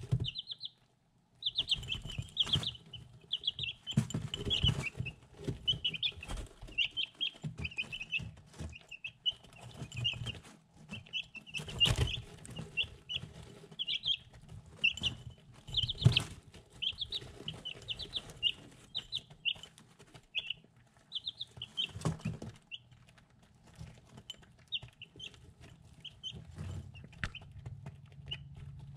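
Three-week-old chicks peeping constantly, short high chirps several a second, while their beaks peck at feed in a ceramic dish, giving sharp taps and now and then a louder knock.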